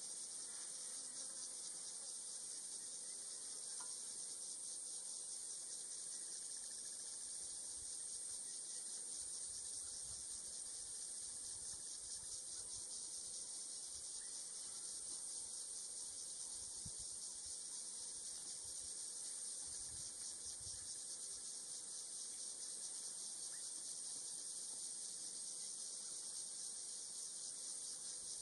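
Steady, high-pitched buzzing of an insect chorus with a fast, even pulse.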